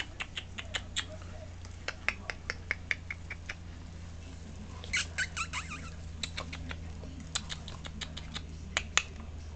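Raccoon eating crackers: a run of sharp, irregular crunching clicks as it chews and picks at crumbs on a wooden shelf, with a brief squeaky burst about five seconds in, over a steady low hum.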